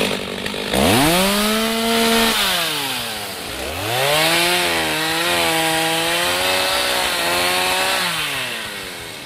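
Chainsaw engine revving up twice: a short rev about a second in, then a longer one held for about four seconds that winds down near the end.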